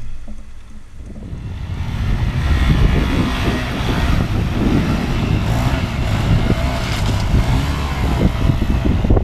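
Dual-sport motorcycle engine running while riding, growing louder over the first two seconds and then holding steady, with wind buffeting the microphone.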